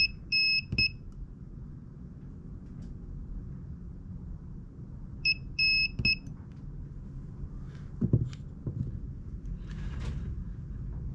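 Cheap mini battery spot welder beeping twice about five seconds apart, each time a short, a longer and a short beep, each ending in a sharp snap as the probes fire a weld pulse through the nickel strip tab onto an LG HG2 18650 cell. A few low knocks and rustles of the cell being handled follow.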